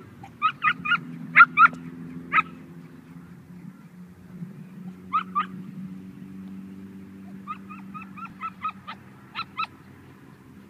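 Chinese Crested dogs yipping in play: short high-pitched yips in quick runs, about six in the first two and a half seconds, two about five seconds in, and about ten near the end. A low steady hum runs underneath.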